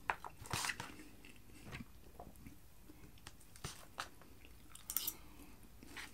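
Faint chewing, with scattered light clicks and scrapes of a fork picking cheesy waffle fries out of a plastic tray.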